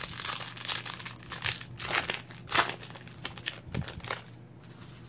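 Wrapper of a football trading-card pack crinkling and tearing as it is opened, in a run of short crackly bursts, loudest about two and a half seconds in.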